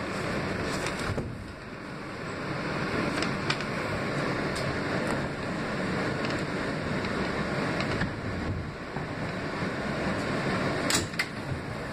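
R160B subway car running along the station platform as the train slows to a stop, a steady rumble of wheels on rail and motor noise. A couple of sharp clicks come near the end.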